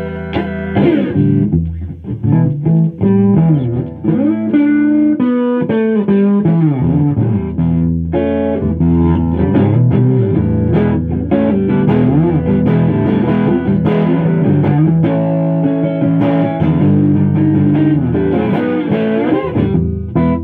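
Solid-body electric guitar played lead through an amplifier: single-note lines with frequent string bends.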